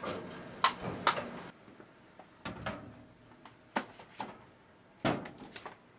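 A pull-out library shelf unit being handled and books shifted on it: a string of short knocks and clunks, the loudest about a second in and again about five seconds in.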